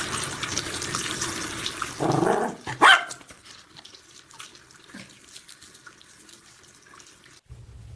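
Water running from a tap, with a dog barking once, short and loud, about three seconds in; afterwards the water stops and only small scattered sounds are left.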